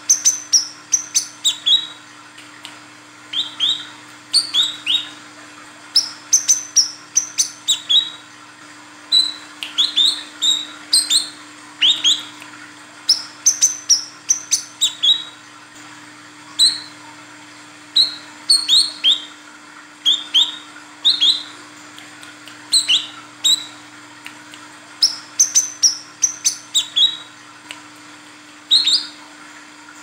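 Female brown-throated sunbird calling: quick clusters of two to six short, sharp, high chirps, each sweeping downward, repeated over and over with short pauses between clusters. A faint steady low hum lies underneath.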